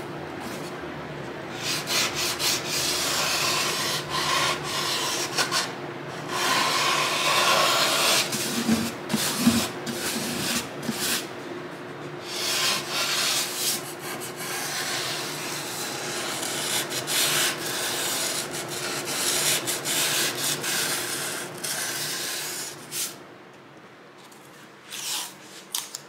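A small hand-held abrasive tool rubbed along the routed binding-channel edge of a wooden acoustic guitar body, in repeated uneven strokes, to clean up the edge before the binding goes in. The rubbing stops near the end.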